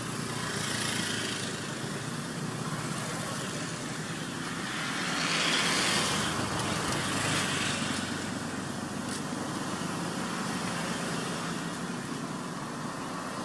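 A motor running steadily with a low hum under a haze of outdoor noise, swelling a little about five to seven seconds in.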